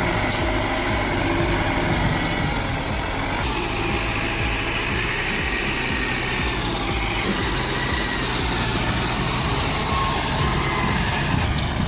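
Heavy vehicle engine running steadily.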